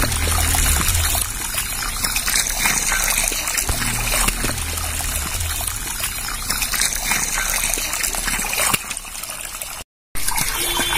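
Water from a hose pouring steadily into a shallow pond, a continuous splashing trickle that cuts out briefly about ten seconds in.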